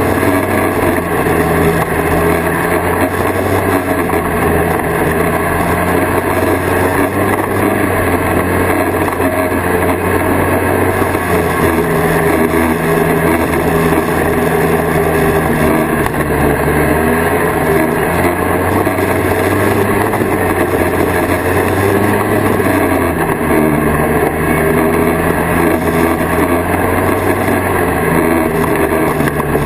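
1979 Kawasaki Invader 440 snowmobile's two-stroke engine running steadily under way along a snow trail, its pitch rising and falling a little with the throttle.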